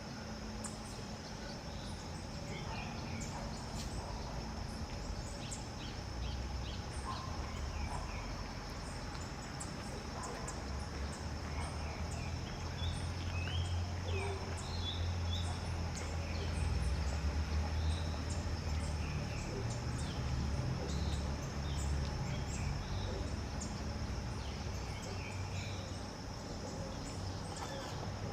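Several small birds give short, scattered chirps and calls, which the uploader takes for frightened alarm calling, over a steady high insect drone. A low rumble swells in the middle.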